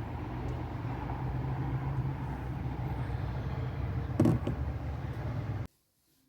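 A steady low mechanical hum with one knock about four seconds in; it cuts off abruptly shortly before the end.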